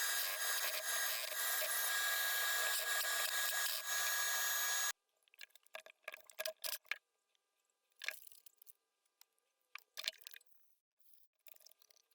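A steady rough rubbing noise that cuts off suddenly about five seconds in, followed by scattered light clicks and taps of small parts being handled during injection pump reassembly.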